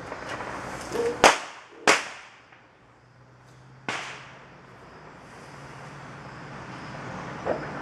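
Sharp knocks from handling the green black locust handle blank at the shave horse: two close together about a second in, a third near four seconds, and a fainter one near the end.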